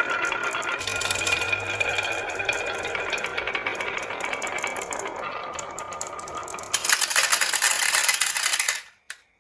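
Marbles rolling and clattering down a HABA wooden marble run: a rapid, continuous rattle of clicks that slowly fades, swells into a louder clatter about seven seconds in, then stops abruptly near the end with one last click.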